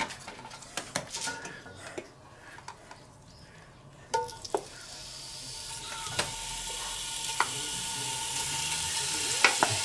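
Cubes of meat dropped into hot clarified butter in a cast-iron Dutch oven, starting to sizzle from about four seconds in, the sizzle growing steadily louder as more meat goes in. A few sharp clinks come from the spoon scraping the meat out of a steel bowl.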